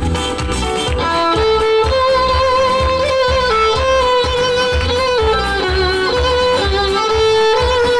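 Violin played live, a melody of held notes moving step by step, over a backing track with a steady beat; people clap along.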